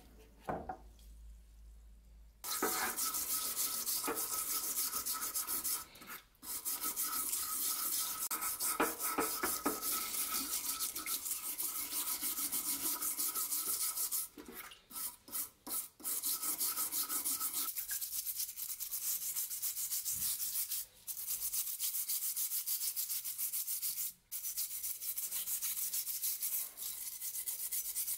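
Rusty steel meat-cleaver blade being scrubbed fast and hard by hand in a tray of liquid, loosening the rust. A steady scratchy rubbing starts a couple of seconds in and goes on with a few short breaks.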